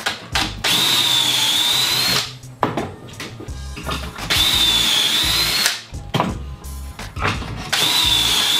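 Cordless drill with a stepped bit boring pocket holes through a pocket-hole jig into a wooden frame: three runs of a steady high whine with the bit cutting wood, each a second or two long, the last one starting near the end.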